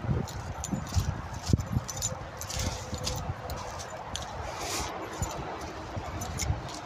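Footsteps through long grass and woodland undergrowth, with irregular thuds and short rustles of brushed vegetation.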